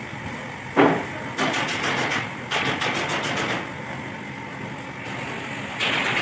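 Engine parts being handled on a workbench: a single sharp metal clank about a second in, then stretches of scraping and rustling, over a steady low hum.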